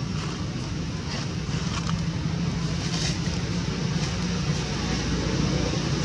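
Steady low outdoor background rumble, with a few faint clicks.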